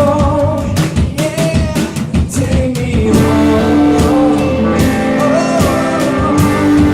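Live rock band playing with drum kit and guitar, a held sung note fading in the first seconds before the band carries on instrumentally.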